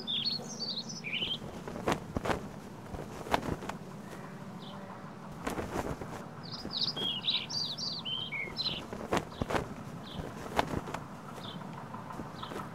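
A songbird singing two quick runs of high chirping notes, the second about six seconds in, with single chirps near the end. Over it come sharp clicks and knocks from a pop-up tent's frame and fabric being pulled up and set, with a low steady hum underneath.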